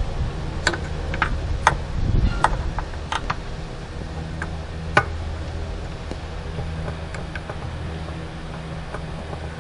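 Irregular metal clicks and knocks, about half a dozen in the first five seconds with the sharpest about five seconds in, as a Honda Civic R18A1 starter motor is handled and worked out of its mounting by hand. A steady low hum runs underneath.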